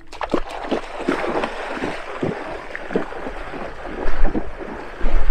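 Bare feet splashing through shallow lake water as a person wades out, step after step, with gusts of wind buffeting the microphone about four seconds in and near the end.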